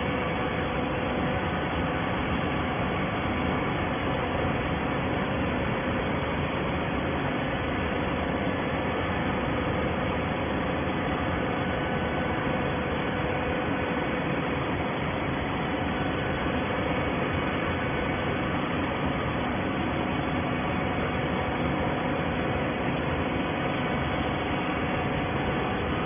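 Plastic bottle baler machinery running steadily: an even mechanical noise with a constant low hum, unchanging throughout.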